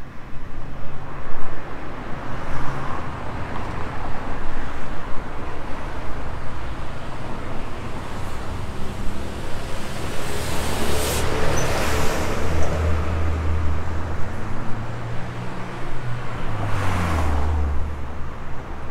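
Street traffic: car engines and tyre noise, with a vehicle passing close about halfway through and another near the end.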